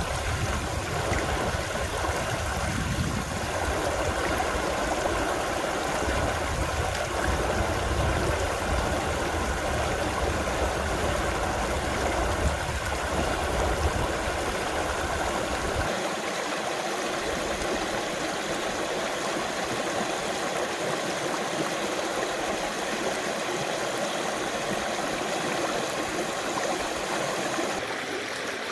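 Mountain valley stream rushing steadily over rocks. A low rumble underneath drops away a little past halfway.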